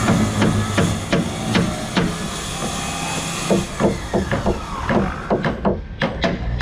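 Hammer blows on heavy timber, a series of sharp strikes about two to three a second, as the wooden posts of a fishing boat's cabin frame are fixed in place. A steady low hum runs underneath.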